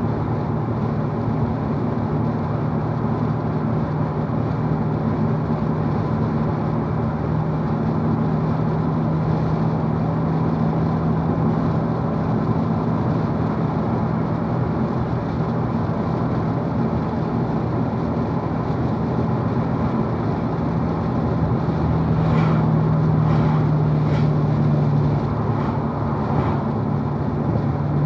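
2016 Chevrolet Corvette Z51's 6.2-litre LT1 V8 cruising steadily in fourth gear at about 2,000 rpm, a steady low drone over road and tyre noise, heard from inside the cabin. It gets a little louder about 22 seconds in.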